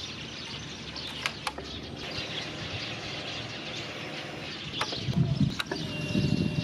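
Outdoor ambience with small birds chirping, a few sharp clicks, and a low rumble that comes up about five seconds in.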